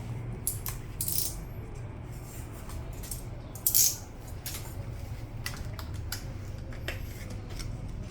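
Scattered small clicks and light metallic rattles from handling a laptop and small tools while it is opened for a RAM upgrade. The loudest click comes about four seconds in.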